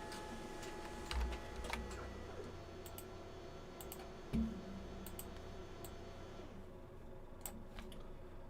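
Typing and clicking on a computer keyboard: scattered, irregular key clicks, with two low thumps, one about a second in and a louder one near the middle.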